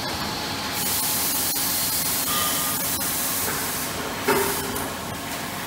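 Injection moulding machine and its unloading robot arm running, with a loud hiss of released air that starts about a second in and stops about five seconds in. A sharp clunk comes shortly before the hiss ends, over a steady machinery noise.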